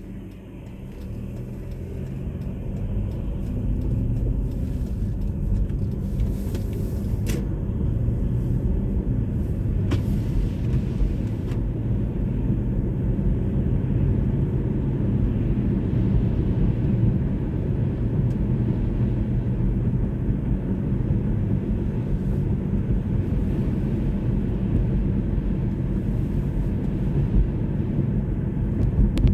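Car driving: a low engine and road rumble that grows louder over the first few seconds as the car speeds up, then holds steady.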